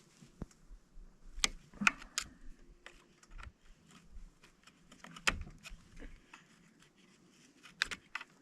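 Irregular small clicks and taps of a hand tool working against the plastic housing of a chainsaw's primer bulb as its clips are pried loose.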